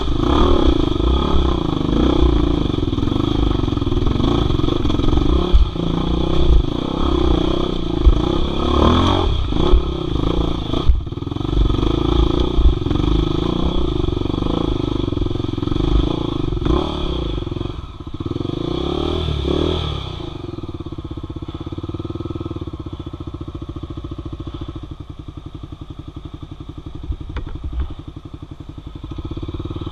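Enduro dirt bike engine revving up and down under load over a rough trail, with clattering and thumps from the bike. About two-thirds of the way through, the revs drop and the engine runs low and steady, near idle.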